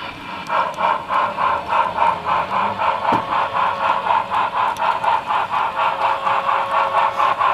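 Model freight cars rolling past on the track, their wheels clicking steadily over rail joints about five times a second. The clicking gets louder about half a second in.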